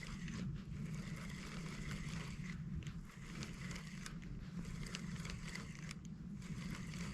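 Spinning fishing reel being cranked to retrieve a lure, a run of light irregular clicks and ticks over a steady low hum.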